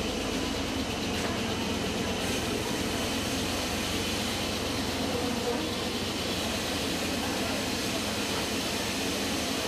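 Steady, even mechanical din of factory machinery mixed with a propane-fuelled forklift's engine as the truck drives across the hall.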